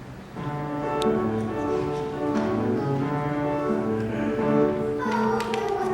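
Instrumental accompaniment begins about half a second in, with sustained notes that have a bowed-string sound: the introduction to a song.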